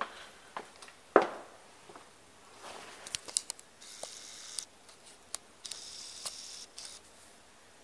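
Footsteps on carpet and handling noise from a handheld camera: a few soft thumps in the first two seconds, then scattered clicks and two short spells of scratchy rustling.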